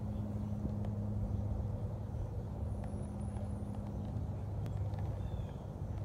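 Steady low mechanical hum with a rumbling undertone, like a running motor or idling engine, with a few faint ticks over it.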